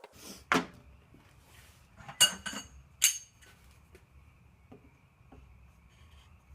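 Metal clamps clinking and clanking as they are handled: a knock about half a second in, then a cluster of sharp, ringing clinks around two seconds in and one more a second later, followed by a few faint ticks.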